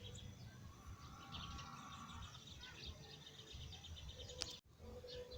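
Faint birds chirping over a low steady background rumble, with a brief drop-out about four and a half seconds in.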